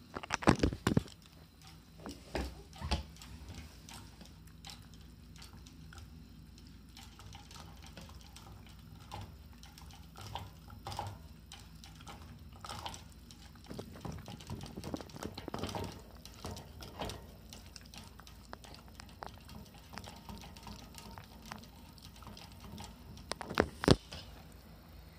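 Shiba Inu drinking from a water bottle clipped to its wire crate, licking and mouthing the metal nozzle: many small clicks and lapping sounds, with louder rattling clatters just under a second in and again near the end.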